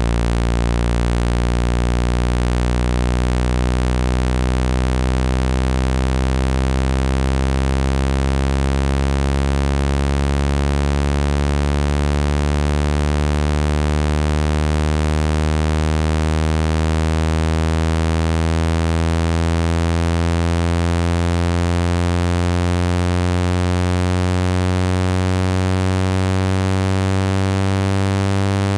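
Electronic speaker-cleaning tone meant to shake trapped water out of a phone speaker: a low, buzzy tone with many overtones, its pitch slowly rising, over a steady hiss.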